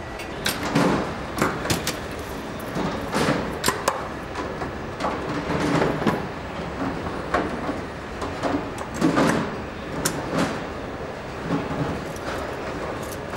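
Engine assembly-line noise: irregular metallic clanks and knocks from parts handling and machinery over a steady factory hum.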